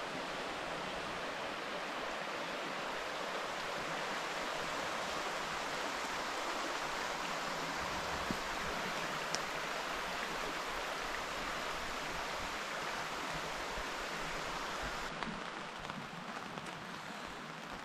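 Shallow, rocky River Dane running over stones, a steady rushing. About fifteen seconds in it gives way to quieter, uneven rain pattering on the tent.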